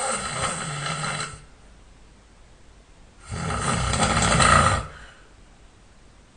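A sleeping person snoring. One snore ends about a second and a half in, and another snore of about a second and a half follows, with quiet breathing gaps between them.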